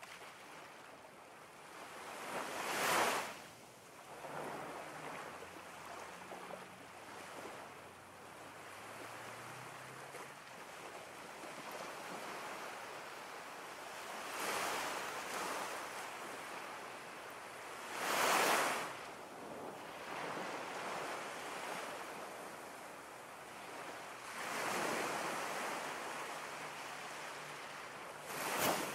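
Ocean surf: a steady wash of water with waves swelling and breaking every few seconds. The biggest surges come about three seconds in, a little past the middle, and just at the end.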